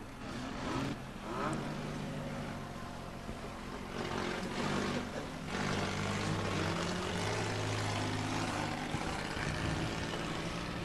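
Car engines of old demolition-derby cars running and revving. The pitch rises a few times in the first couple of seconds, then holds more steadily.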